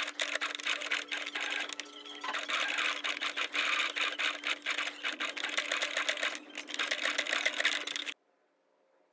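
Electric sewing machine stitching through layers of felt, the needle making rapid, even strokes over a steady motor hum; it eases off briefly a couple of times and stops abruptly near the end.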